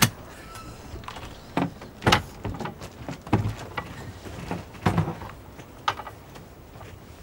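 Caravan door latch clicking open, then a series of irregular sharp knocks and clanks as a folding chair is handled and carried down the step.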